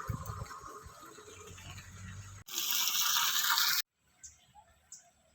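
Scratchy rustling and scraping of handling noise, then a loud hiss for just over a second that cuts off abruptly. After it, a few faint short chirps, likely birds.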